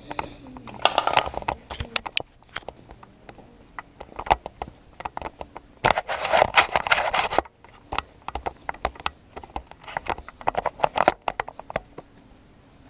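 Handling noise close to the camera's microphone: irregular clicks and knocks of gear being handled, with two longer scraping, rustling stretches, one about a second in and a louder one around six to seven seconds in.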